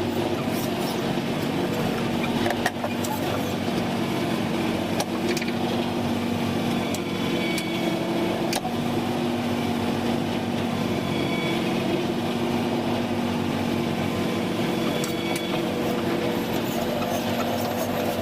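Wood-processing machinery running steadily with a constant hum, and a few sharp knocks or clacks, one about two and a half seconds in and another near eight and a half seconds.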